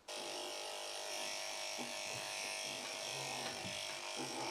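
Corded electric pet grooming clippers running steadily, shaving a cat's fur.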